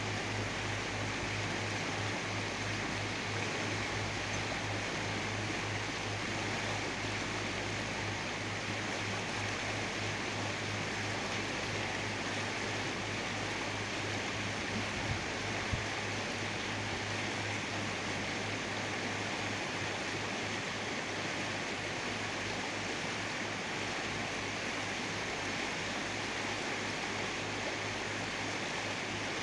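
Steady rushing noise with a low hum beneath it, unchanging throughout.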